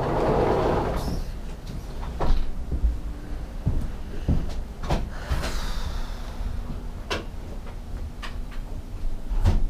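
Handling noise: a rustle in the first second, then scattered knocks and clicks, a few sharper ones spread through.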